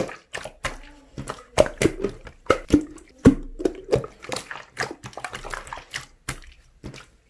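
Slime being pressed and played with by hand, giving an irregular string of sticky pops and squelches, several a second.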